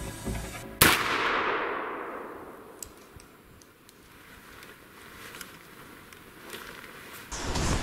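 A single gunshot from a hunting gun about a second in, echoing through the forest and dying away over a couple of seconds, with a few faint clicks after it.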